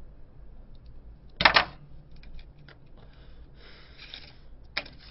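Plastic cigarette lighter struck with a sharp double click about a second and a half in, followed by a few light clicks and a short soft hiss near four seconds, and one more click near the end.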